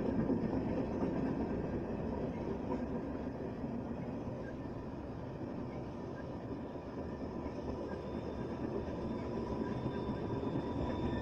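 Freight tank cars and covered hoppers rolling past, a steady rumble of wheels on rail. A thin steady squeal grows near the end, which the railfan takes for the train slowing to stop, though he says he hears the same sound on every train.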